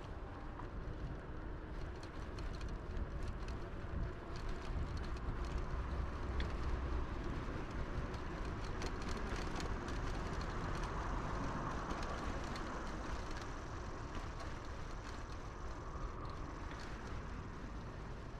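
Tern HSD bicycle ridden along a paved path: steady rolling noise with low rumble and scattered small clicks and rattles, a little louder through the middle.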